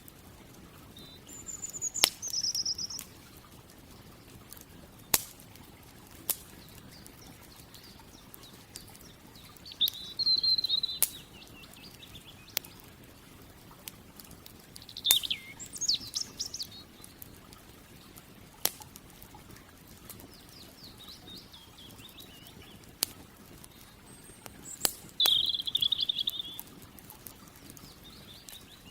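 Campfire crackling with scattered sharp pops, while a songbird sings short high twittering phrases, four of them spread across the stretch.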